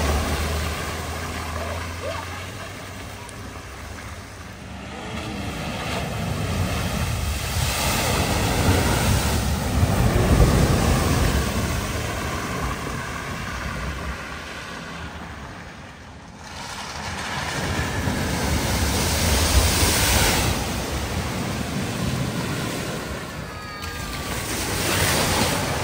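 Vehicles driving through deep flood water at a ford: water splashing and surging around them over the sound of their engines. The sound rises and falls several times as vehicles come through.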